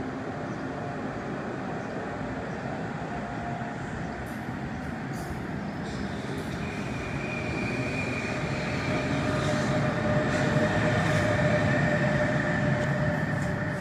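NJ Transit train rumbling along the track, growing louder from about halfway in, with faint high steady whining tones over the rumble in the second half.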